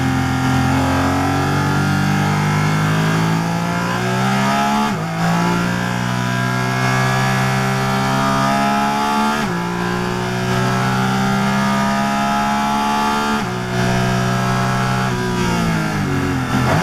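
Porsche Cayman GT4 RS Clubsport's naturally aspirated flat-six engine at full throttle, heard from the cockpit. Its pitch climbs through the gears, with upshifts about five, nine and a half and thirteen and a half seconds in, then drops a couple of times near the end as it downshifts.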